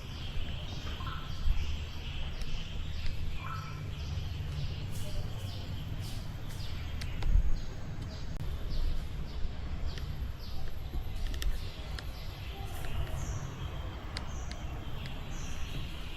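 Small birds chirping repeatedly in short high calls over a steady low rumble of wind on the microphone, with a few sharp clicks.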